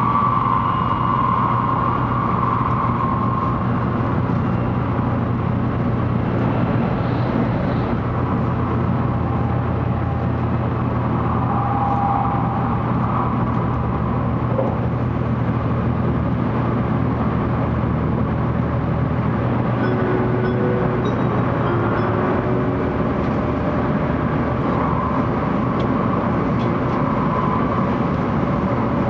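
Steady cabin noise inside a 700 series Shinkansen passenger car under way: the constant rumble of the running train with a low hum underneath.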